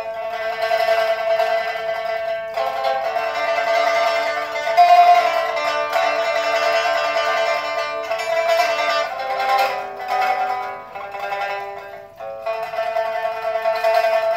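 Pipa, the Chinese pear-shaped lute, played solo: a continuous stream of plucked notes that changes pitch several times, with a brief break about twelve seconds in.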